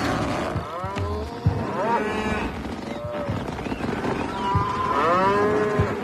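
Several animals calling over one another, with short, pitched cries that rise and fall, repeated throughout.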